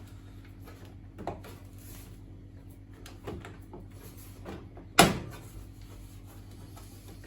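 Plastic control panel of a washing machine being pushed into place: a few light knocks, then one sharp loud snap about five seconds in as its tabs click home.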